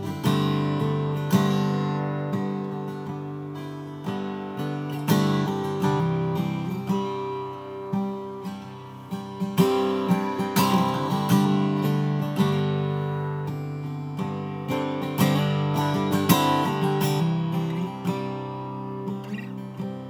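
Solo steel-string acoustic guitar played live with no voice: chords strummed and picked every second or two, each left to ring and fade.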